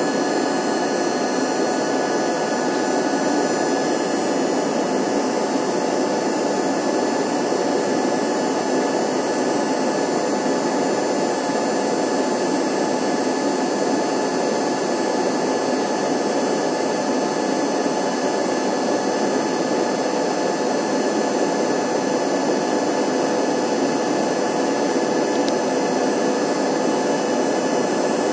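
Embraer 145 in flight, heard from inside the cabin: the steady drone of its rear-mounted Rolls-Royce AE3007 turbofans and rushing air, with several constant whining tones on top.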